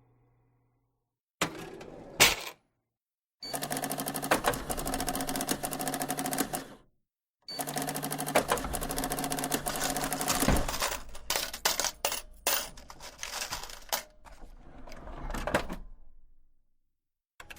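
A motorised office machine clattering rapidly and evenly over a steady motor hum, in two runs of about three seconds each with a short pause between. Before them comes a single sharp click, and after them a stretch of irregular clicks and clacks.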